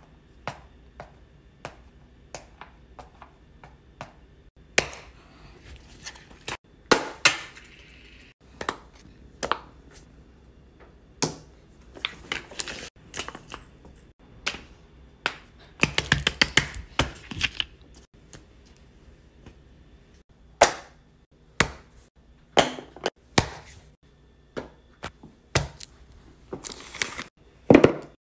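Fidget toys and other small objects being set down, tapped and pressed on a paper-covered table: a string of separate sharp clicks and knocks, with a denser run of clicking a little past halfway.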